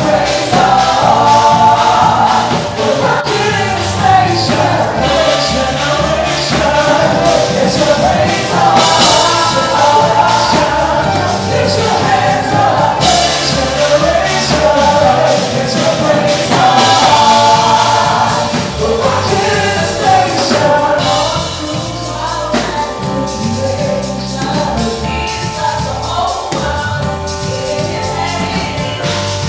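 Gospel music: a choir singing praise and worship over instrumental backing, a little quieter in the last third.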